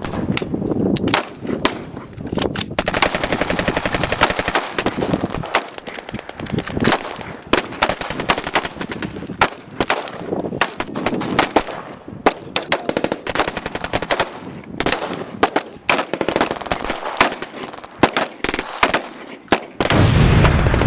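Gunfire sound effects: rapid machine-gun bursts mixed with single shots, with a loud low boom like an explosion near the end.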